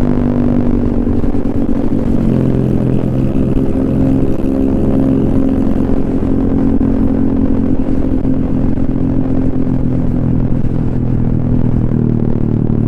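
Honda ADV 150 scooter's single-cylinder engine running through an aftermarket SC Project silencer and Kawahara header while riding, its exhaust note holding a fairly steady pitch.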